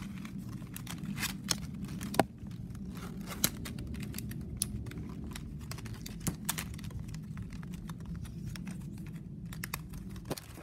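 Plastic strapping band being threaded, tucked and pulled tight through a woven piece by hand: irregular small clicks, crackles and scrapes of the stiff plastic strip, with a few sharper clicks, over a steady low hum.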